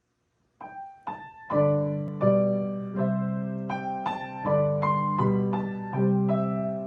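Piano playing: two single notes, then a run of sustained, ringing chords starting about a second and a half in.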